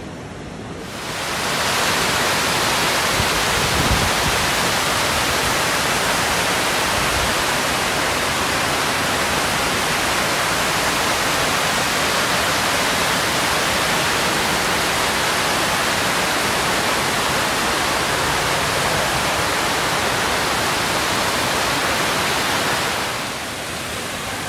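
Flash floodwater rushing through a street in heavy rain: a loud, steady rushing noise of water. It swells up about a second in and falls away near the end.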